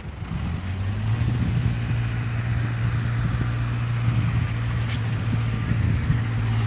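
A motor vehicle's engine running steadily with a low drone, growing louder about a second in.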